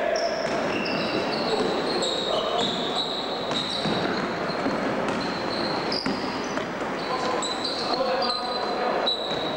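Sounds of a basketball game in a gym hall: the ball bouncing on the floor, many short high squeaks of sneakers on the court, and players' voices.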